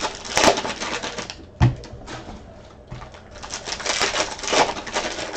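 Crinkling and rustling of trading-card box packaging and pack wrappers being opened by hand, in uneven bursts, with one sharp thump about a second and a half in.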